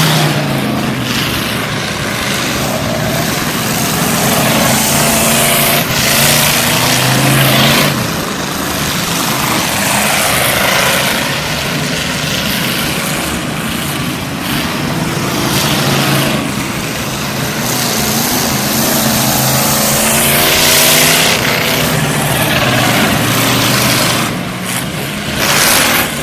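Several race cars running laps on a dirt oval, their engines revving up and easing off, with the noise swelling loudly each time cars pass close by, about four times.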